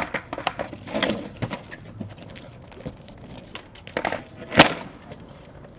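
A skateboard clattering on cardboard sheets laid over brick paving: scattered knocks and clicks, with one sharp, loud knock about four and a half seconds in.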